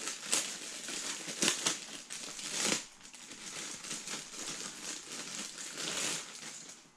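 Packaging crinkling and rustling as hands unwrap a package, with a few sharp crackles in the first three seconds and softer rustling after.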